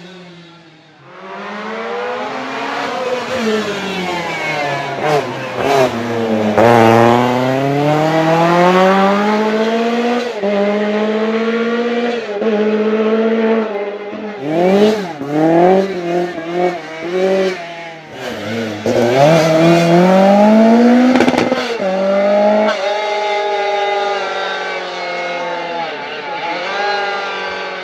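Lancia 037 Group B rally car's supercharged four-cylinder engine at full throttle, the pitch climbing through the revs and dropping sharply at each gear change or lift, again and again. A stretch of short, choppy blips of the throttle comes about halfway through.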